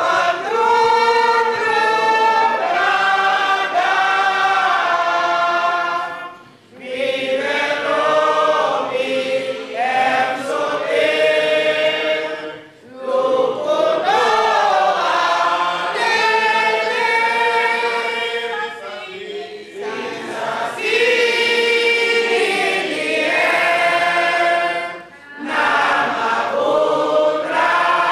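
A group of women singing together, in long phrases broken by short pauses about every six seconds.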